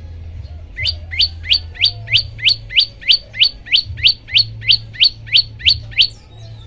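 Prenjak lumut singing: a run of about sixteen identical, sharply rising whistled notes, evenly spaced at roughly three a second, starting about a second in and stopping near the end. A low steady hum lies underneath.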